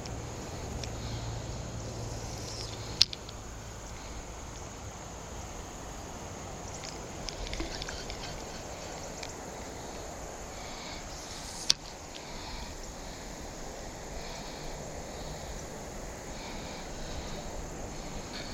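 Steady outdoor creekside ambience with faint high chirping, broken by two sharp clicks about nine seconds apart.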